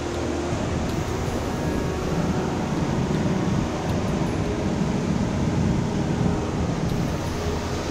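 Sea surf breaking and washing over a rocky shore: a steady rushing noise, swelling a little in the middle, with wind on the microphone.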